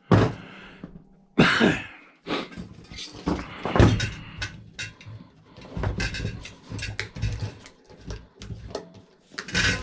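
Irregular knocks and clattering as metal microwave parts are handled and moved during a teardown.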